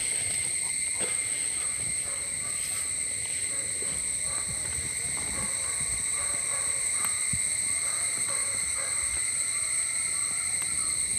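Steady high-pitched trill of crickets, unbroken throughout, with a few faint taps.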